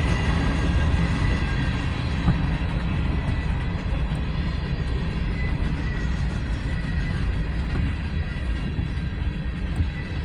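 Freight train passing close by: a steady low rumble of rail cars rolling over the track.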